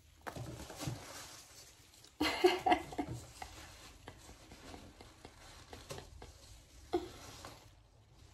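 A woman's brief laugh about two seconds in, amid faint scattered taps and small clicks, with one sharper click near the end.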